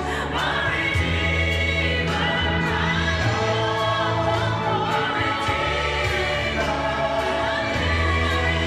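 Music with singing over steady bass notes and a light, regular beat.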